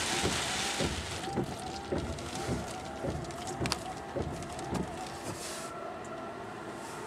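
Christ rollover car wash heard from inside the car: water spray hissing on the windscreen dies away about a second in. Under it, the wash gantry's machinery makes a rhythmic whirring with a low thump about twice a second, which fades out about five seconds in.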